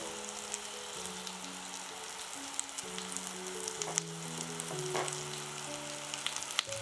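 Apple rings frying in melted butter and caramelised sugar in a nonstick frying pan: a steady sizzle with scattered small crackles and pops. Soft background music plays underneath.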